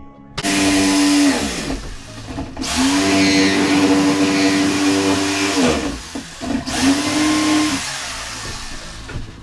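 An electric power tool motor run three times in quick succession, each run starting abruptly, holding a steady whine, then winding down in pitch as it coasts to a stop; the longest run is in the middle.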